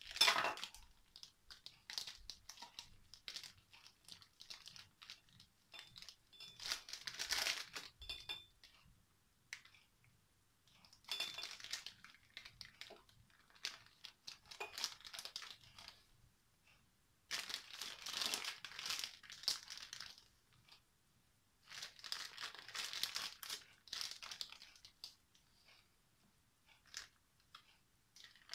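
Thin plastic piping bag crinkling in repeated bursts of a second or two each, several seconds apart, as it is handled and filled with choux pastry dough.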